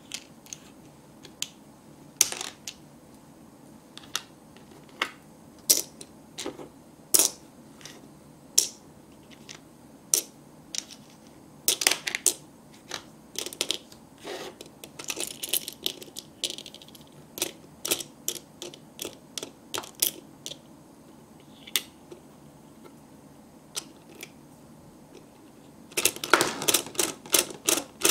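Small plastic toy pieces clicking and tapping against a plastic cutting board and pot as they are picked up and dropped in, one sharp click at a time. Near the end a quick run of clicks comes from the toy stove's crank being turned.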